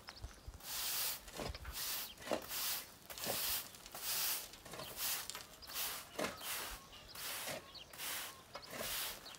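Stiff-bristled push broom sweeping a dry, dusty dirt yard: scratchy swishes of the bristles over the ground, about one stroke a second.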